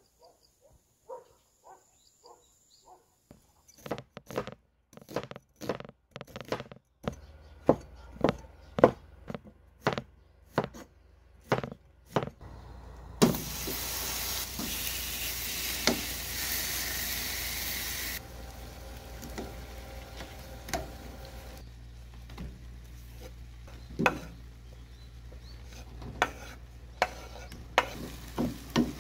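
A run of sharp knocks, about one or two a second, then marinated meat slices sizzling loudly in a frying pan as they are turned with tongs. The sizzle drops suddenly after about five seconds, and a beef, mushroom and courgette stir-fry sizzles more quietly while a wooden spatula knocks and scrapes in the pan.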